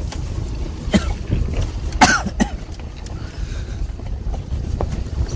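Steady low rumble of a Chevrolet Colorado pickup driving on a mountain road, heard from inside the cab, with a person coughing once about two seconds in.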